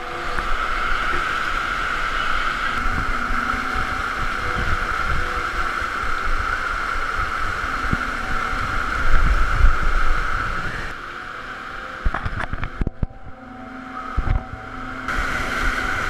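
Underground stream rushing and splashing over rocks through a cave passage, with low rumbling and knocks of handling on the microphone. The rushing drops quieter for a few seconds past the middle, then rises again near the end.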